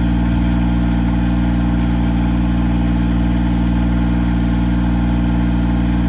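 Engine of an Altec AT37 tracked backyard aerial lift running steadily at idle.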